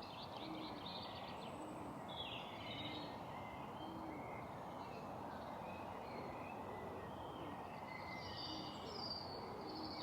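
Birds singing and chirping outdoors, with a low hooting note repeating about once a second, over steady background noise.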